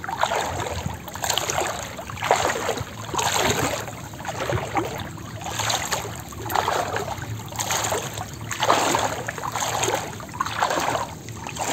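Shallow floodwater sloshing and splashing in a steady rhythm, about once a second, as something moves through it.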